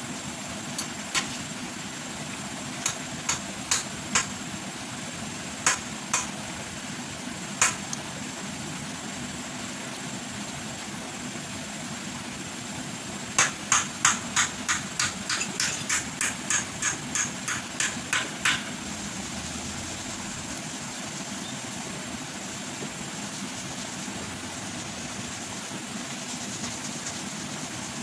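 Close-up eating sounds: a few scattered crisp clicks of chewing in the first eight seconds, then a quick run of about fifteen gulps, some three a second, while drinking from a glass jar. A steady background hum runs underneath.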